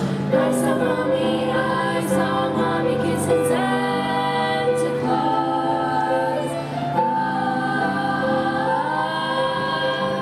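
Girls' youth choir singing in parts.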